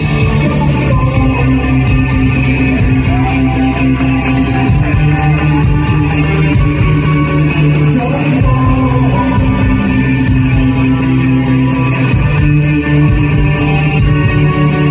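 Live post-punk rock band playing: electric guitars, bass and drums, with a man singing into the microphone.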